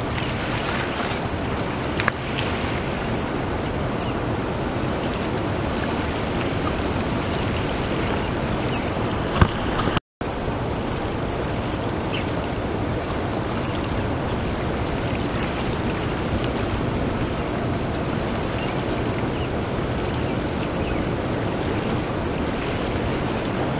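Steady rush of the Wisconsin River's rapids, with two short knocks. The sound cuts out for a moment about ten seconds in.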